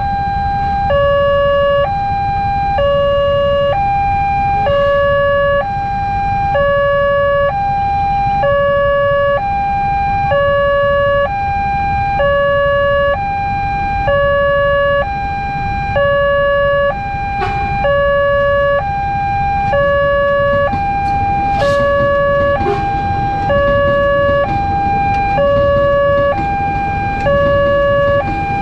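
Railway level-crossing warning alarm sounding a steady two-tone alternation, a higher tone then a lower one, about one tone per second, over the low rumble of waiting motorcycle engines.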